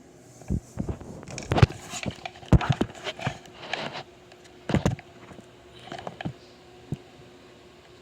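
A series of irregular knocks, clicks and rattles of handling, heaviest in the first half, over a faint steady hum.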